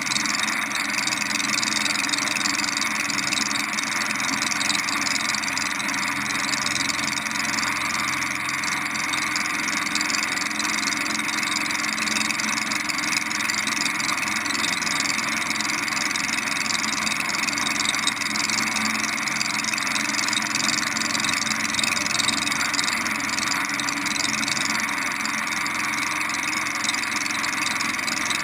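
Preceptor Ultra Pup light aircraft's engine and propeller running steadily in level flight, with rushing air over the wing-mounted camera's microphone.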